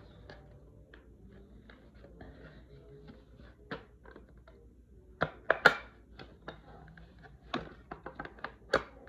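Plastic toy playset pieces being handled: scattered clicks and taps, with a quick cluster of louder knocks about five and a half seconds in and another run of clicks near the end.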